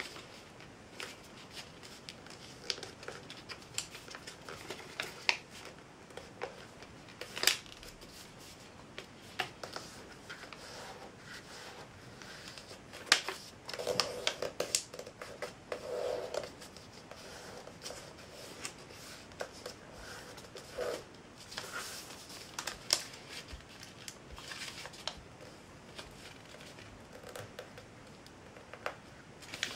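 A sheet of paper being folded by hand on a tabletop, its creases pressed flat with the fingers: irregular crisp rustles and crinkles with scattered sharp clicks, busiest around the middle.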